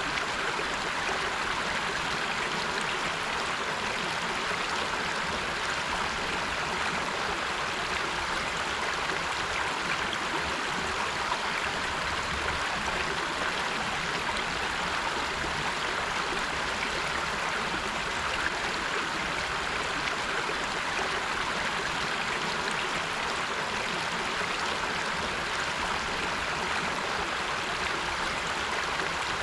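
River water flowing and rushing over rocks in a steady, even rush.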